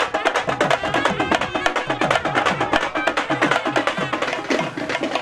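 Barrel drum beaten fast in a dense, driving procession rhythm, with deep strokes that fall in pitch.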